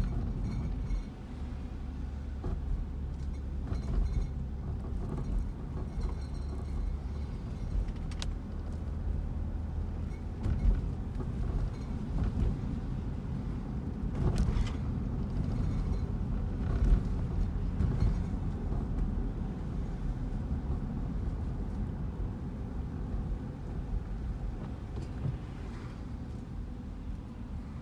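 Car driving on wet pavement, heard from inside the cabin: steady low engine and road rumble with tyre noise and a few brief knocks, and a low drone during the first ten seconds or so.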